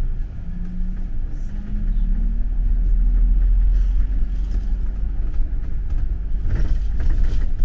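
London double-decker bus heard from inside while moving. The engine and road rumble are deep and steady, the engine tone climbs as the bus picks up speed over the first few seconds, and there is a short rattle near the end.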